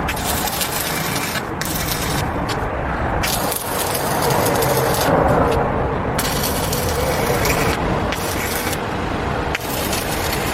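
Arc welding on wrought iron: a steady crackling hiss that starts and stops in bursts of a second or so.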